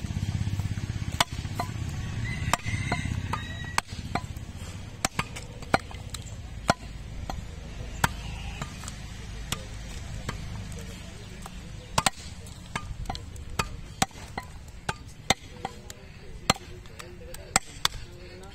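A heavy butcher's knife chopping through beef brisket and rib bones onto a wooden chopping block: sharp, irregular chops, about one or two a second.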